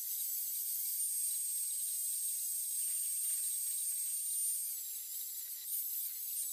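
Angle grinder with a thin cutting disc running at full speed and cutting through a wooden slingshot blank: a steady high-pitched whine over a hiss, dipping slightly in pitch about two-thirds of the way in as the disc is loaded.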